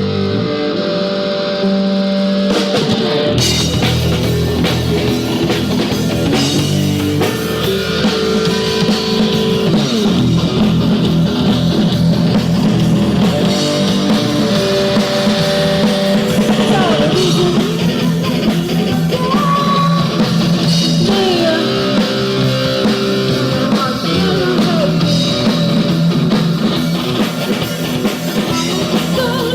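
Rock music: guitar-led band playing, with drums and cymbals coming in about three seconds in, and singing over it.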